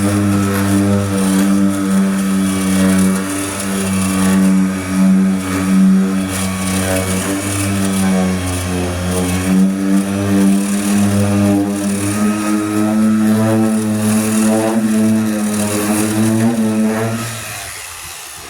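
Power sander running steadily while sanding body filler on a truck door, its pitch wavering slightly under hand pressure, then winding down and stopping near the end.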